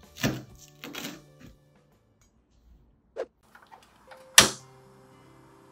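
Kitchen knife chopping green onion on a wooden cutting board, two quick chops near the start. Then the portable gas stove's knob clicks and its igniter snaps loudly about four and a half seconds in, followed by a faint steady hiss of the lit burner.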